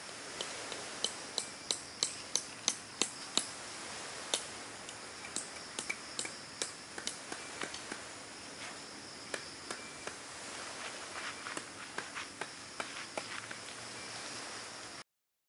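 Metal tent peg being struck with the back of a hatchet: a quick run of sharp metallic taps, about three a second, for the first few seconds, then scattered taps. A steady high drone of insects runs underneath.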